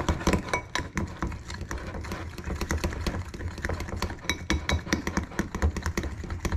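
Eggs and egg white protein powder being beaten by hand in a bowl into a thick batter: the utensil clicks against the bowl in a rapid, uneven stream.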